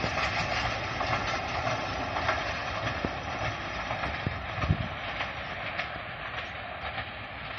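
Passenger train's coaches running away along the track: a steady rolling rumble from wheels on rails with a few sharper knocks, slowly fading as the last coach recedes.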